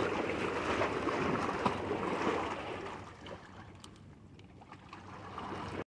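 Sea waves washing against a rocky shore, a steady rushing that dies down about three seconds in.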